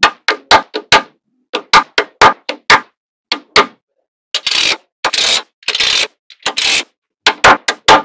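Small magnetic balls clacking sharply as bars of them are snapped onto a slab of magnet balls, in quick groups of clicks. In the middle come four rattling stretches of about half a second each.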